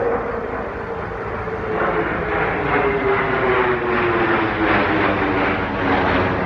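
Jet engine noise from a B-2 stealth bomber flying in formation with four fighter jets overhead. The noise swells about two seconds in and stays loud, and a single tone slides slowly down in pitch as the formation passes.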